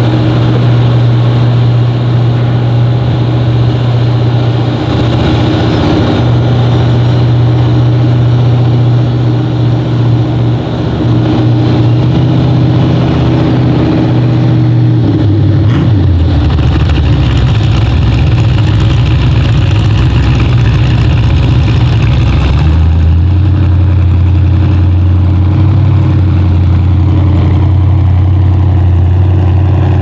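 A loud engine running hard and steady, its pitch dropping about halfway through and shifting again later on.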